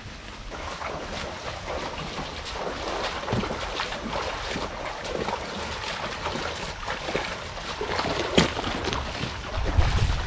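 Several people's footsteps brushing through undergrowth and splashing across a shallow stream, a jumble of steps and splashes with one sharper knock about eight seconds in. Wind rumbles on the microphone, stronger near the end.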